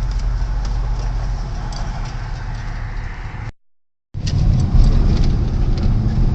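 Car engine and road noise heard from inside a moving car, a steady low rumble with light rattles. The sound cuts out completely for about half a second near the middle, then resumes.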